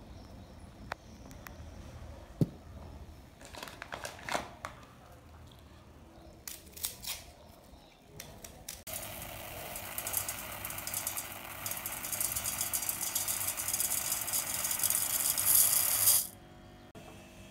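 Dry basmati rice grains poured into a metal bowl: a steady hissing rattle that begins about halfway through, grows louder, and stops suddenly near the end. Before it come a few light knocks.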